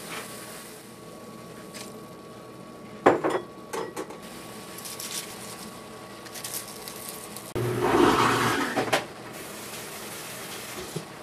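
Kitchen pan and bowl noises at a stainless steel sauté pan: a sharp clank about three seconds in and a few small clicks, then a longer rustling clatter near eight seconds as shredded cabbage is tipped from a bowl into the pan.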